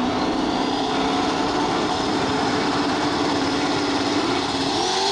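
Drag race car engine running loud at a steady speed, with a faint high whistle slowly rising above it; near the end the engine note begins to climb as the revs come up.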